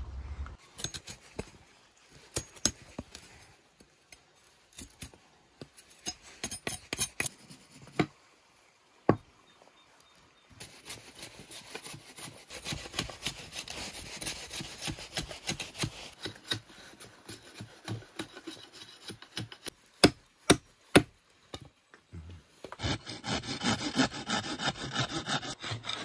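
Steel knife scraping and shaving the bark of a freshly cut green stick, in short scrapes at first and then a steady stretch of scraping. Three sharp knocks of wood come about three-quarters of the way through, then rapid back-and-forth rasping strokes working wood fill the last few seconds.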